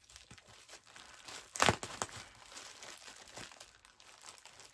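Plastic packaging crinkling and rustling as it is handled and cut open with scissors. A few sharp crackles stand out, the loudest about a second and a half in.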